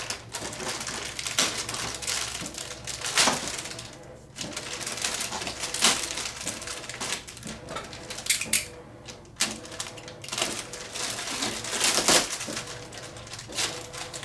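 Packing tape and plastic packaging being cut and pulled away by hand: irregular crinkling and rustling with sharp clicks and snaps every couple of seconds.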